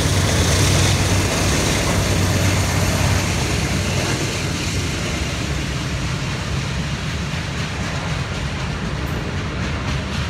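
Norfolk Southern freight train passing close by: the diesel locomotives' engines give a steady low drone for the first few seconds, then the covered hopper cars roll past with a continuous rumble, and regular wheel clicks over rail joints come in near the end.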